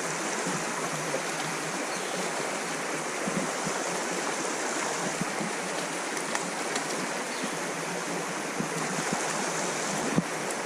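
Creek water flowing, a steady even rush, with a light knock near the end.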